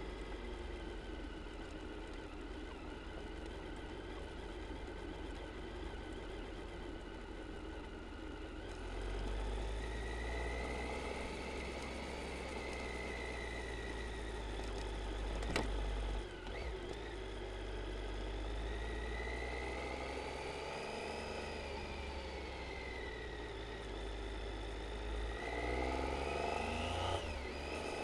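Triumph Tiger 800 XC's three-cylinder engine running on the move, its pitch rising and falling with the throttle over a steady low rumble of wind and road. A single sharp knock comes a little past halfway.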